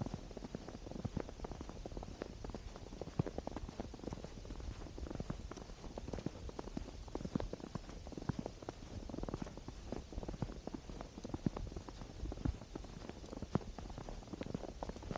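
Footsteps crunching in snow, a dense run of irregular crackles over a steady low rumble.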